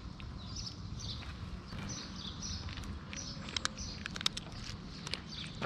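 Small birds chirping repeatedly in the background, with a cluster of sharp clicks from about three and a half to five seconds in as a cat crunches dry kibble.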